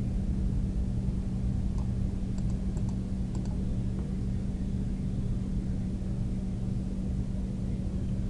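Steady low hum with a few faint computer clicks about two to four seconds in.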